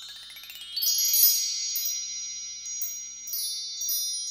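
Glittering chime sound effect: a quick rising run of high bell-like notes in the first second, then high chimes ringing on with fresh strikes every half second or so.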